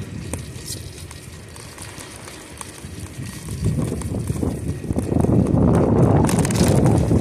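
Wind buffeting the microphone of a camera riding on a moving bicycle, with tyre rumble on a paved bike lane. The low rumbling is fairly quiet at first and swells about four to five seconds in, with a few sharp clicks near the end.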